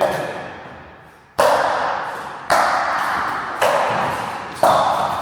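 Pickleball rally: paddles strike the plastic ball five times, about a second apart. Each hit is a sharp pock that dies away in a short echo.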